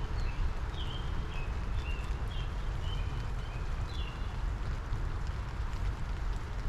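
Steady rain falling, with a low rumble underneath. A songbird gives a series of short chirps through the first four seconds or so, then stops.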